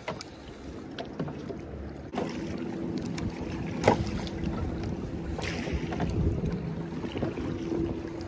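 Fishing kayak on the water: scattered knocks and a sharp click against the hull, with a low steady hum that starts suddenly about two seconds in.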